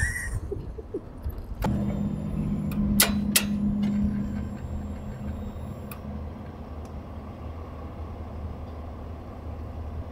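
A sudden steady hum starting about two seconds in, with two sharp clicks, as a start is tried on a Chevy OBS pickup with a jump starter clamped to its dead battery; the engine does not start.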